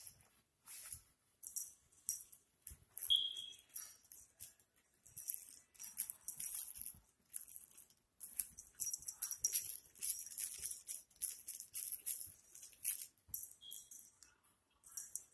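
Chihuahua puppy shaking and mauling a plush pizza-slice toy: irregular bursts of crisp rattling and rustling, with two short high squeaks, one about three seconds in and one near the end.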